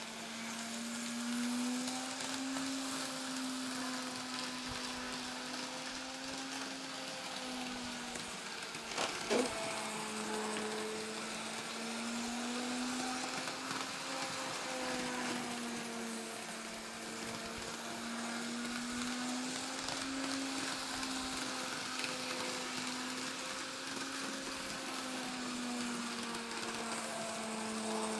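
Kato N-scale CSX GE AC4400CW model locomotive running with its freight train: a steady electric motor whine whose pitch drifts gently up and down as the speed varies, over a light running hiss. One sharp click about nine seconds in.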